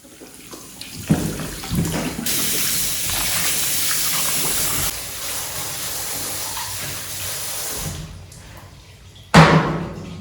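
Water running from a tap, starting and stopping abruptly, after a couple of light knocks. About a second before the end comes a single loud knock.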